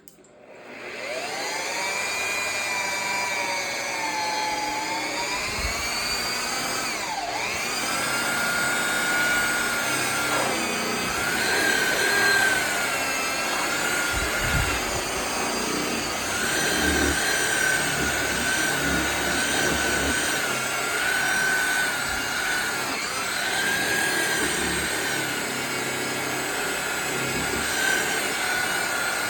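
Electric buffer spinning up about a second in and then running as it polishes a metal bumper, its whine dipping and rising in pitch as the load on the pad changes.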